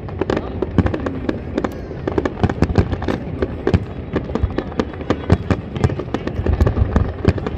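Aerial fireworks bursting in quick succession: a dense, unbroken run of bangs and crackles, several a second.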